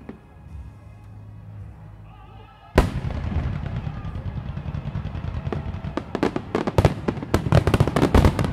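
Aerial firework shells in a finale barrage: after a quieter opening, one big boom about three seconds in sets off a dense, rapid run of shell bursts and bangs that gets busier and louder toward the end.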